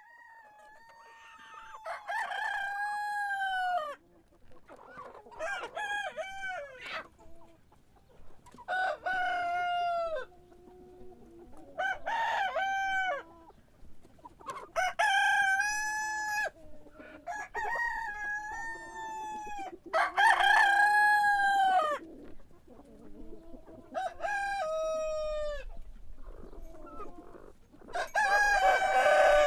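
Roosters crowing over and over, a crow roughly every three seconds, with hens clucking softly in between.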